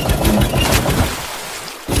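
An engine running with an even knock of about eight beats a second. About a second in, the low beat drops away to a fading hiss, then the engine sound cuts back in abruptly near the end.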